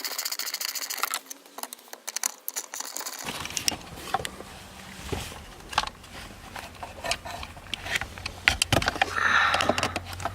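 Hand tools and small metal parts clicking and clinking while working on a car's shifter assembly: a fast run of ratchet-like clicks in the first second, then scattered light clicks and knocks, with a brief scrape near the end.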